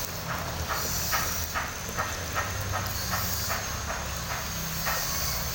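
Water running in a steady hiss into a container of detergent-and-petrol cleaning mix as it is filled, over a steady low hum with regular light ticks about two to three times a second.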